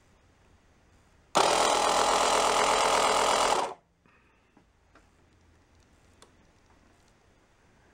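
Small 12-volt air compressor built into a Chicago Electric 5-in-1 portable power pack, switched on at its rocker switch and running for about two and a half seconds with a fast, even pulse, then switched off; a few faint switch clicks follow. The compressor is being tested for failing to start or running intermittently, a fault blamed on high-resistance contacts in its rocker switch.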